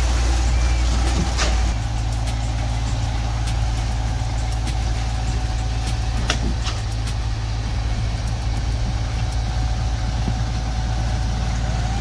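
Concrete boom pump truck's diesel engine running steadily, a low drone that drops a little about two seconds in, with a few scattered clicks and knocks.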